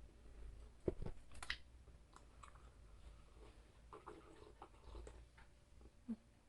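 A person chewing food close to the microphone: faint, with scattered soft mouth clicks and a couple of sharper bites about a second in.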